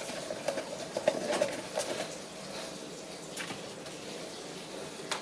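Small plastic humidifier parts being handled: a cluster of light clicks and taps in the first couple of seconds, then quieter handling.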